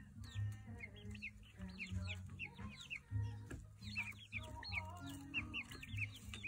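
Chickens clucking, with many short high chirps, several a second, over hip-hop music with a pulsing bass line.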